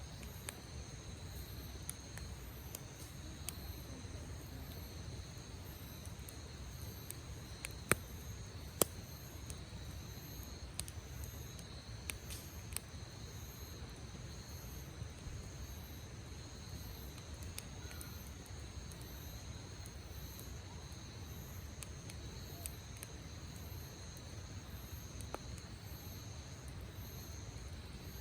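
Wood campfire crackling with scattered sharp pops, two louder ones about eight and nine seconds in. Insects chirp steadily in the background in even, repeating pulses.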